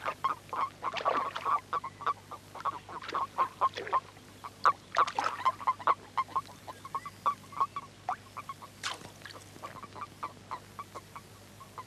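Common toads calling in a mating cluster: many short croaks overlapping in an irregular chatter. A faint low hum runs underneath.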